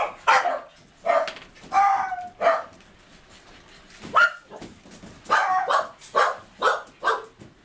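Keeshond dogs barking in kennel cages: a string of short barks, a lull of about a second and a half in the middle, then a quicker run of barks in the second half.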